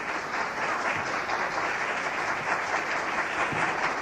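Audience applauding steadily with dense, many-handed clapping at the end of a recited poem.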